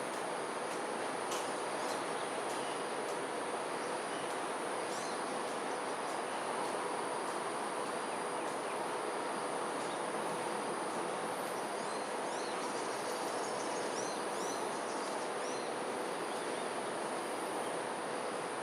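Steady outdoor ambience: a continuous high-pitched insect drone over an even rushing noise. Faint, short bird chirps come through a few times in the second half.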